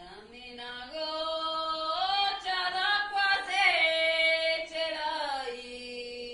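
A group of women singing one long phrase of an Abruzzese dialect folk song in harmony, on held notes that swell in the middle and soften near the end.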